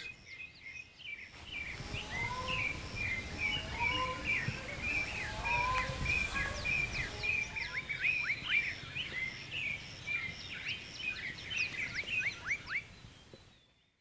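Wild birds calling together in a chorus of short chirps and slurred notes, with a run of quick down-slurred whistles in the second half, fading out near the end.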